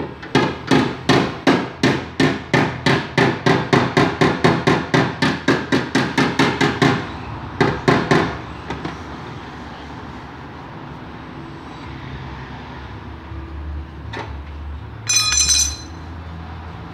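Body-repair hammer tapping rapidly on the sheet metal of a car's rear quarter panel, about three or four even blows a second for some seven seconds, then three more taps: working out a dent in paintless dent repair. Near the end comes a single click and then a brief ringing metallic clink.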